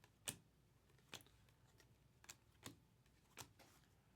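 Faint, sharp clicks of trading cards being flipped through one at a time, about five over the few seconds, the loudest near the start.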